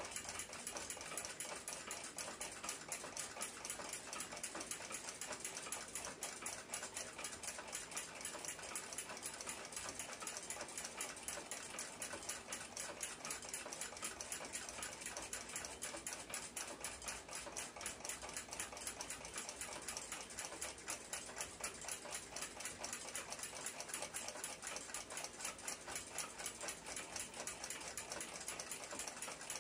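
Faint, steady, rapid ticking of a running timepiece.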